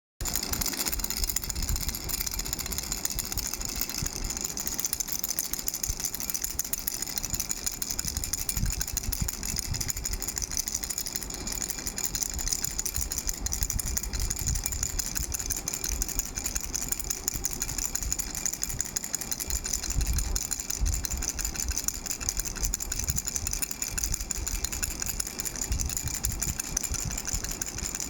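A baby rattle shaken quickly and continuously, a dense, unbroken rattling with no pauses.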